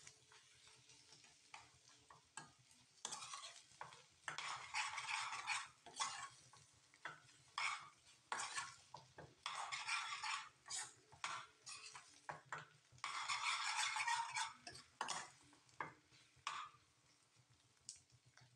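Prawn masala stirred in a frying pan with a cooking utensil: irregular scraping strokes of a second or two each, with clicks of the utensil knocking the pan.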